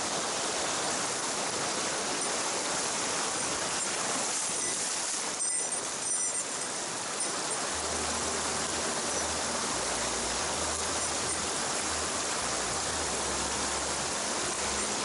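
Mountain stream running steadily, an even rushing hiss of water, with a few brief clicks about five and a half to six and a half seconds in.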